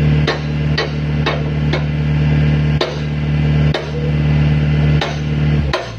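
Engine of a hydraulic pile-press rig running steadily, with sharp knocks like hammer strikes on metal every half second to a second. The engine hum stops near the end.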